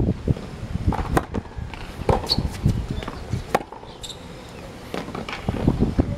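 Tennis balls struck by racquets and bouncing on an outdoor hard court, several sharp pops spread across a few seconds of a serve and the exchange after it, over a low rumble of wind on the microphone.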